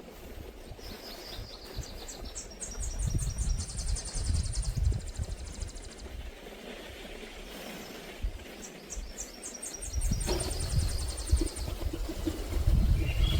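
A small songbird singing: two phrases of rapid, high, repeated notes, the first lasting about four seconds and the second starting near the ten-second mark.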